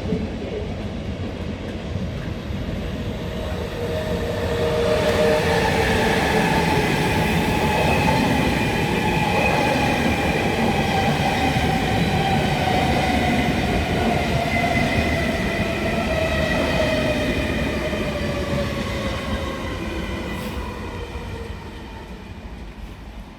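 Electric train running past, a rumble carrying a whine of several tones that slowly falls in pitch; it builds about four seconds in and fades away near the end.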